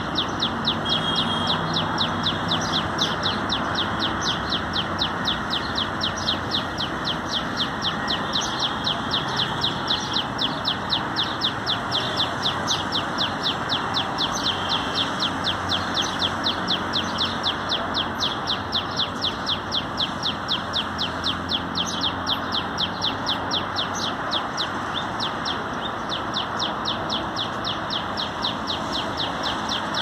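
Common tailorbird singing: a long, unbroken run of sharp, high, evenly repeated notes, several a second, over steady background noise.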